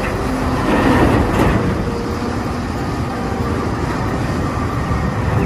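Caterpillar 992G wheel loader's diesel engine running under load as it tips a bucket of earth into a dump truck, with a louder rush of dirt pouring into the truck bed about a second in.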